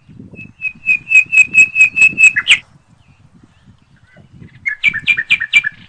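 A songbird singing two phrases of rapid, repeated high whistled notes. The first is about ten notes at roughly five a second, ending in a quick flourish. After a pause of about two seconds comes a shorter phrase of about five notes.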